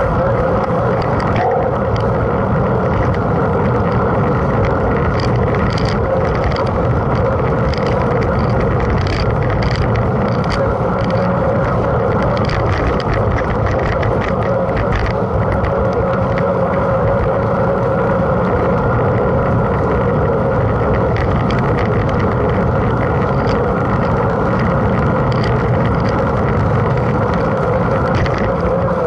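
Mountain bike ridden in a race: a steady, loud rushing noise, with scattered light clicks and rattles over it.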